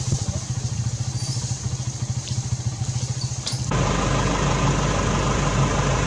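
A motor running steadily with an even, low pulsing drone, over a constant high-pitched hiss. About three and a half seconds in, it suddenly gets louder, with a steady hum added.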